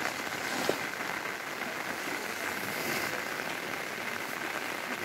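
Light rain falling with a steady, even hiss, and one brief tap under a second in.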